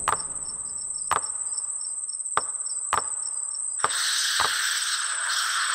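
Sound-designed horror night ambience: a high, steady insect-like trill, with sharp single drips falling about once a second, six in all. About four seconds in a hissing swoosh swells up and holds.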